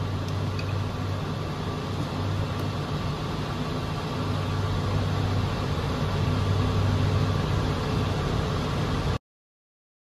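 Steady hum and hiss of running lab equipment, cutting off abruptly near the end.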